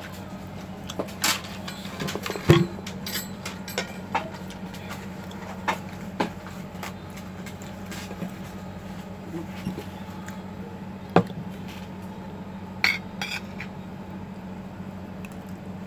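Spoon and fork clinking and scraping against a plate as food is scooped up and eaten, in scattered sharp clicks, the loudest about two and a half seconds in and about eleven seconds in, over a steady low hum.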